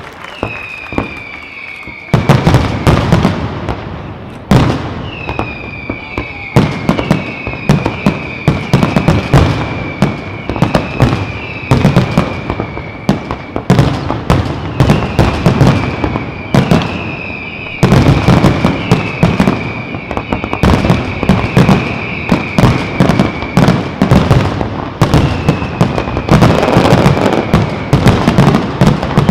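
Aerial fireworks display: a dense barrage of bangs and crackling, with repeated whistles that slide down slightly in pitch laid over it. The barrage starts heavily about two seconds in and, after brief lulls, picks up again around eighteen seconds in.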